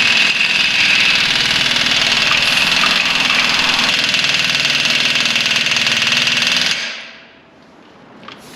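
A power tool running steadily with a fast rattle and a high whine, then winding down and fading out about seven seconds in.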